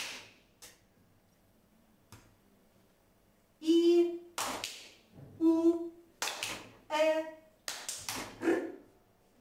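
Children clapping their hands in short bursts, each answering a woman's single drawn-out vowel sound; the claps mark each vowel heard in a listening game. After a few lone claps, four vowels alternate with the clapping from about three and a half seconds in.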